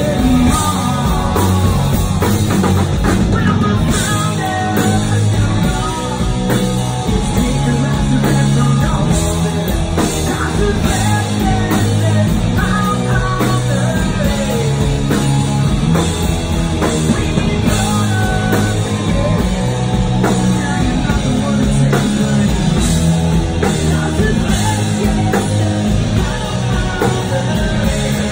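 A hard rock band playing live: a man singing lead over electric guitars, bass and drums, loud and continuous.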